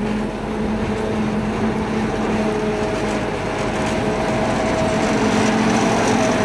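Railway turntable drive motor running with a steady hum and whine while the table turns a steam locomotive; it cuts off near the end as the table comes to a stop.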